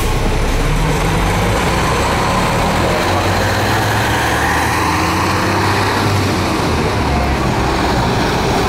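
Isuzu Erga city bus's diesel engine running as the bus approaches and turns past close by, a steady low drone with tyre and traffic noise.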